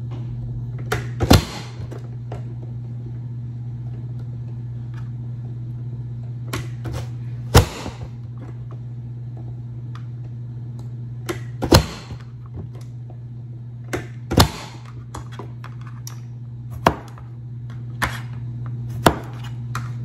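Plastic push-down vegetable chopper slapped shut again and again, its blade grid dicing halved tomatoes. The sharp clacks come every few seconds, some in quick pairs, over a steady low hum.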